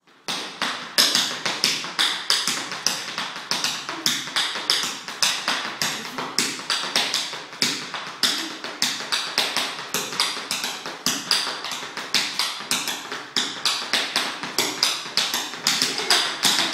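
Tap-dance steps: shoes striking a wooden floor in sharp, uneven clicks, several a second, without a break.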